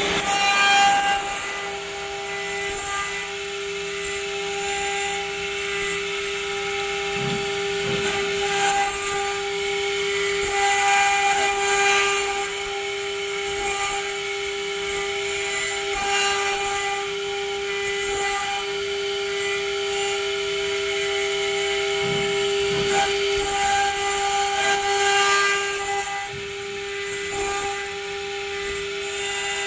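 Stone CNC router spindle running with a steady high whine, with irregular bursts of high hiss every second or few as the bit cuts into stone.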